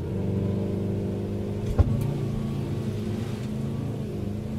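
Mitsubishi L200 pickup's engine held at high revs from inside the cab, the truck bogged in deep mud and trying to drive out. A single sharp bang just under two seconds in.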